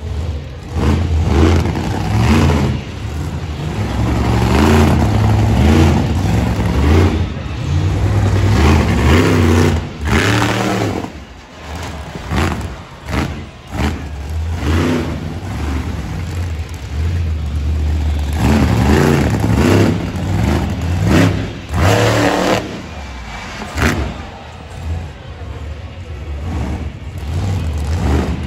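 Monster truck engine revving hard in repeated surges, its pitch climbing and falling with each burst of throttle, easing off briefly about eleven and twenty-four seconds in.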